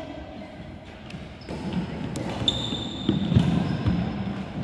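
Badminton rally on a wooden indoor court: sharp racket strikes on the shuttlecock, a high shoe squeak about halfway through, then footfalls thudding on the floor as a player lunges.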